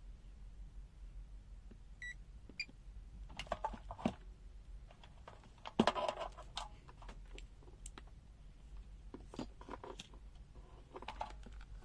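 Two short electronic beeps from a digital multimeter about two seconds in, followed by scattered clicks, knocks and rustles as the meter and its test leads are handled.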